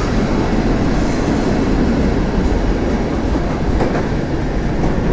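A train running on the tracks: a loud, steady rumble of wheels on rail.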